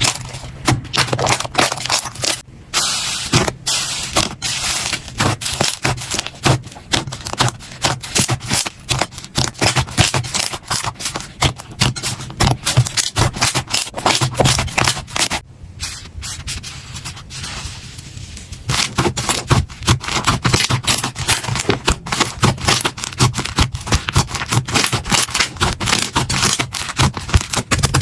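Slime being squeezed and pressed, giving a fast, dense run of crackling, popping clicks that thins out for a couple of seconds past the middle, over a steady low hum.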